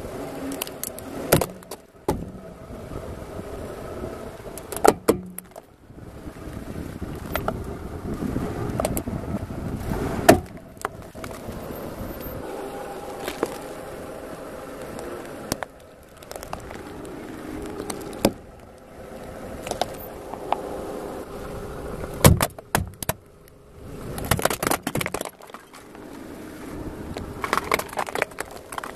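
Car tyre rolling slowly over gravel and crushing plastic objects, among them a plastic hair-gel jar and plastic building blocks, giving sharp cracks and crunches over the car's engine running. The cracks come in scattered groups, with short breaks between them.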